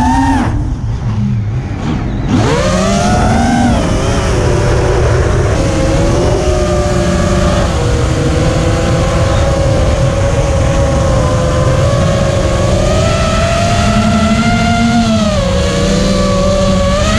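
An FPV racing quadcopter's four brushless motors (2306 size, 2400 kV, 5-inch three-blade props on a 4S battery) whine at several pitches. The pitch drops as the throttle is chopped about half a second in, then sweeps sharply back up just after two seconds. It holds fairly level and dips briefly near the end before climbing again, with a low rushing noise underneath.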